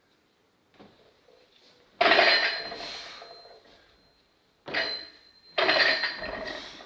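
Loaded barbell with bumper plates clanking during a snatch: three sharp metallic clanks, the first about two seconds in and two more close together near the end, each ringing on and dying away over a second or so.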